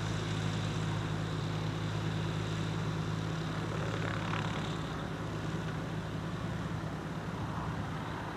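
Maule M5 light aircraft's piston engine and propeller running at low power while taxiing, a steady drone that grows slightly quieter near the end.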